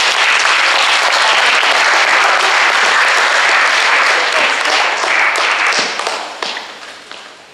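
Audience applauding, a steady clatter of many hands clapping that fades away about six seconds in.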